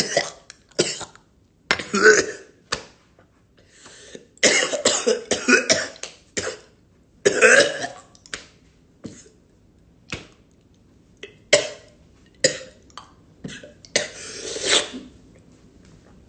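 A man coughing hard in repeated fits, with throat clearing, after drawing on strong pure tobacco.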